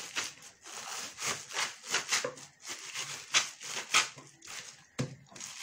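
Wooden rolling pin working over a plastic bag of pomegranate seeds on a stone countertop: the bag crinkles and the seeds squash in a quick series of strokes, about two a second, crushing the seeds to release their juice. A sharp knock about five seconds in.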